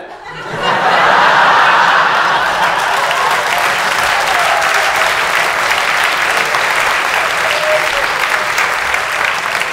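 A theatre audience applauding. The applause swells over the first second, peaks a second or two in, then holds steady.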